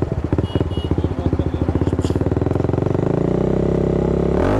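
TVS Apache RR 310's single-cylinder engine idling with an even pulsing beat, then revved up, its pitch climbing steadily from about three seconds in and peaking near the end.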